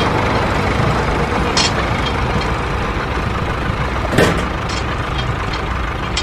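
Steady truck engine idling, a low even rumble, with one short knock about four seconds in.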